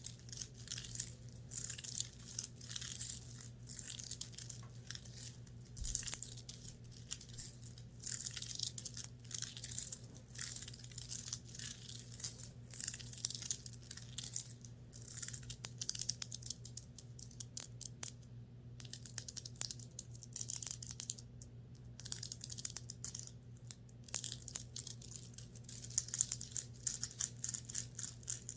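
Fingernails scratching and rubbing the fabric of a top in quick, dense, crackly strokes, pausing briefly twice in the second half, over a faint steady hum.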